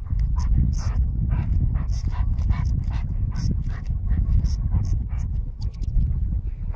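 Golden retriever sniffing hard in short rapid bursts, about two or three a second, with its nose pushed into a lemming's burrow in the moss. A steady wind rumble on the microphone lies underneath.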